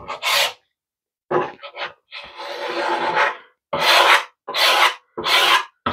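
Small plastic squeegee scraping over wet static-cling window film in a series of strokes, one longer stroke about two seconds in, pressing the water out from under the film against the glass.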